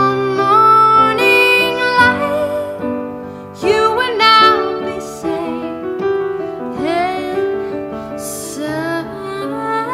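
Song with a woman singing over piano chords, in slow phrases that glide and waver in pitch.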